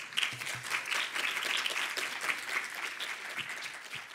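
Small audience applauding: a dense patter of many hands clapping that begins at once and starts to thin out near the end.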